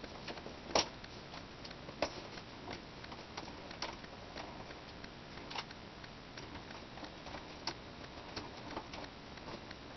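Small scattered clicks and ticks of a Phillips screwdriver working the small screws that hold an HP Pavilion dv6 laptop's LCD panel to its side mounting rails, with two sharper clicks about one and two seconds in.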